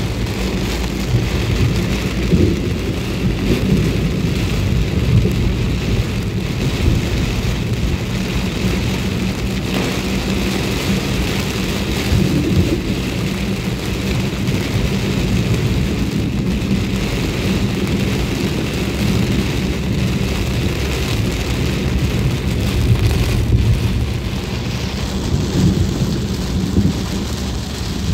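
Heavy rain falling steadily, with a low rumble underneath that swells a few times.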